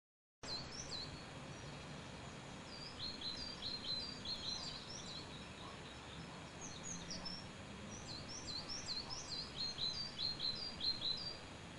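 Birds chirping: a steady run of many short, high chirps over faint background noise.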